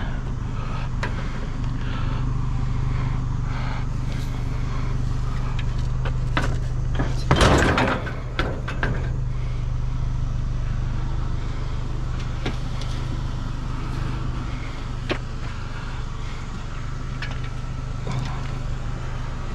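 A vehicle engine running steadily with a low hum, while pieces of scrap metal being handled and loaded knock and clank now and then, the loudest clank about seven and a half seconds in.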